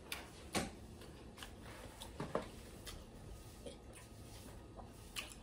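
A person chewing a soft barbecue pulled pork slider with the mouth close to the microphone: faint, scattered wet clicks and smacks, a couple of them a little louder.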